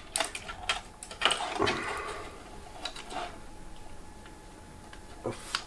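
Hands handling computer power and SATA cables and hard drives in a PC case: plastic clicks and rustling, a run of them in the first two seconds and a few more later.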